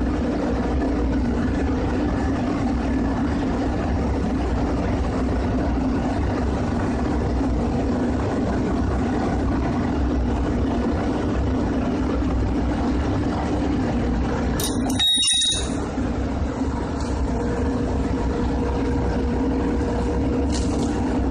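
Steady, loud drone of running machinery with a constant low hum. About fifteen seconds in the sound briefly cuts out with a sharp click.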